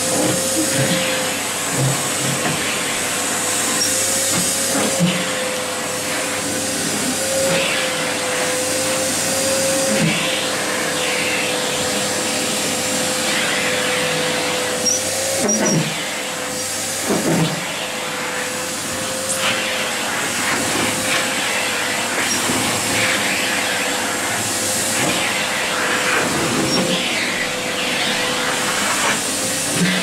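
Vacuum cleaner running steadily with its metal wand held against a cat's fur: an even suction hiss with a steady tone that wavers slightly as the wand moves. A couple of brief knocks come a little past the middle.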